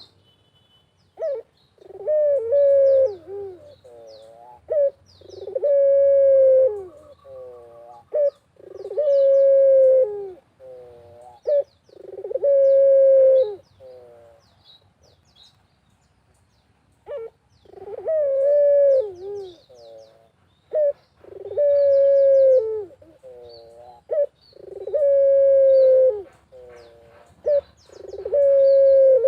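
Puter (collared dove) cooing over and over in a vigorous song: long drawn-out coos, each dipping at its end, alternating with short rolling notes, in two runs with a pause of a few seconds in the middle. Small birds chirp faintly in the background.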